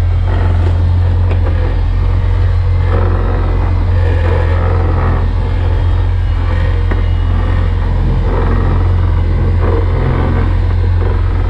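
Small shrimp trawl boat's engine running steadily, a constant drone with no change in speed.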